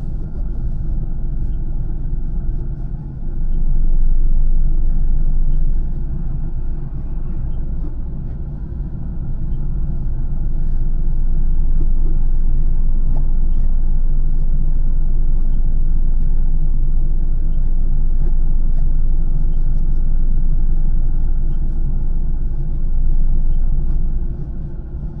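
Steady low rumble heard inside a car stopped at traffic lights, growing louder a few seconds in.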